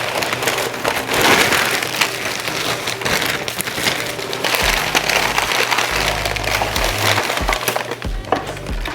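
Shopping bags and packaging rustling and crinkling continuously with sharp crackles, as items are taken out and handled.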